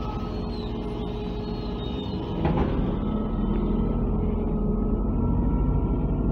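MAZ-203 city bus engine running, heard from inside the passenger cabin. The doors shut about two and a half seconds in, and then the engine note grows as the bus pulls away from the stop.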